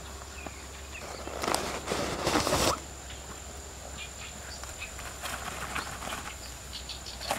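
Footsteps and rustling on a dirt riverbank, with a loud scuffing rustle from about one and a half to two and a half seconds in, then scattered light steps and rustles. Under it runs a steady high-pitched insect buzz.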